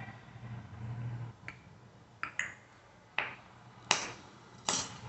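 A baby clicking her tongue: a series of sharp 'tok tok' clicks, about one a second, growing louder toward the end.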